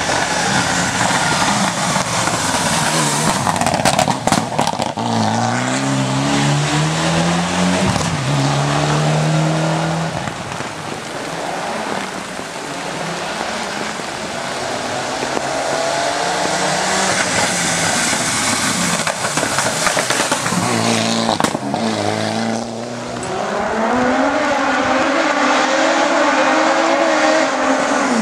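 Hill-climb race car engine revving hard and accelerating. The pitch climbs through each gear and drops sharply at each shift, with some tyre squeal.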